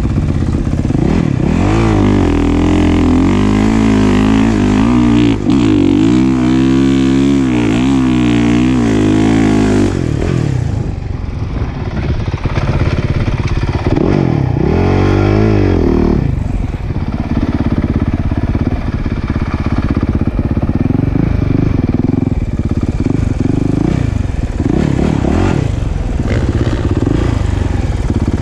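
Dirt bike engine heard up close from the riding bike, revving up and down repeatedly for the first ten seconds. It eases off, revs up again briefly, then runs steadier with smaller swells.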